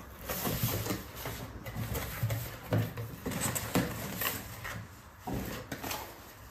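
Cardboard box being opened by hand: flaps folded back and a cardboard insert lifted out, giving irregular rustling and scraping with a few light knocks.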